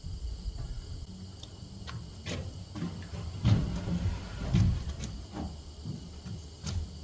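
Scattered light knocks and bumps as a wooden I-joist rafter is handled and lifted into place on the roof framing, over a low steady hum.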